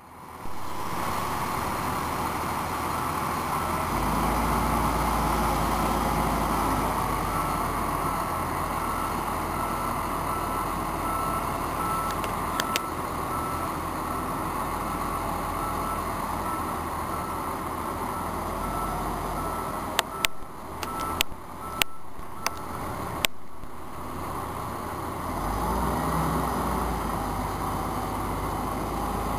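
Large marine forklift's engine running steadily under load while it carries a boat on its forks, getting deeper and louder a few seconds in. A reversing alarm beeps steadily at one pitch through the middle. Several sharp metallic knocks come about two-thirds of the way through.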